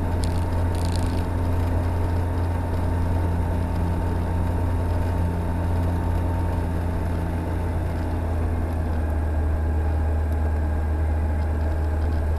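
Light aircraft's Rotax 912 four-cylinder engine and propeller running steadily at low power, heard from inside the cockpit as a loud, even drone. Its note shifts slightly about eight seconds in.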